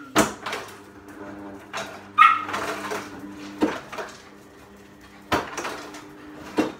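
Ice cubes knocking and clattering as they are put in with the slime: about five separate sharp knocks a second or two apart, over a steady low hum.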